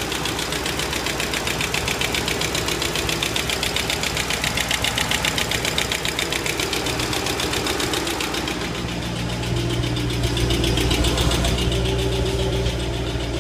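2005 Mustang GT's 4.6-litre V8 idling with a rapid, even ticking from the engine. After about eight seconds the ticking fades and the deeper engine hum grows louder.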